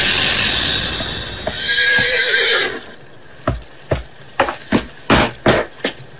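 A loud rushing noise, then a short wavering call with a noisy edge, followed by a run of about seven thudding footsteps on a wooden floor, roughly two a second.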